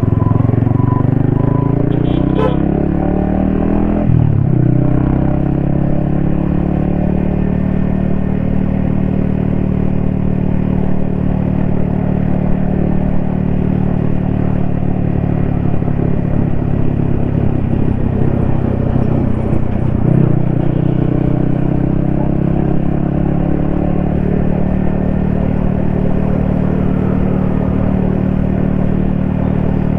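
Yamaha XSR155's single-cylinder engine pulling a motorcycle along. The revs rise for about four seconds and drop sharply at an upshift, then hold steady at cruise, with another gear change about twenty seconds in.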